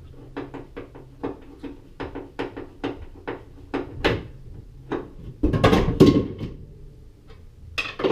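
A quick run of sharp taps and knocks, about four or five a second, then a louder clattering thud about five and a half seconds in and one more sharp knock near the end.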